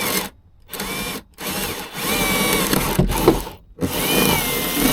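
Power drill boring an 8 mm hole in the cabinet, run in five separate bursts, the last two the longest. Its motor whine rises and falls with each burst.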